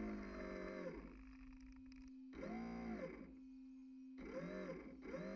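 An RC fireboat's motor whining as it winds down near the start, then speeding up and slowing down in three short bursts, its pitch rising and falling each time. A steady low hum runs underneath.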